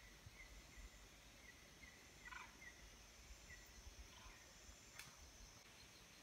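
Faint forest ambience: a bird repeating short high chirps every half second or so over a steady insect hiss, with a couple of louder calls about two and four seconds in and a single sharp tick near the end.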